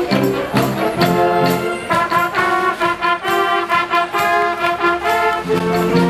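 School concert band playing a tune, saxophones and trumpets together over a steady beat, with lower notes joining near the end.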